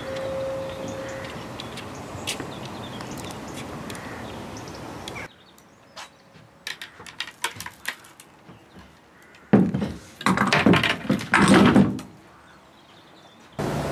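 Knocks and clunks of heavy boat rods with multiplier reels being handled and set down on a boat's deck. There are scattered light knocks first, then the loudest clatter in the second half.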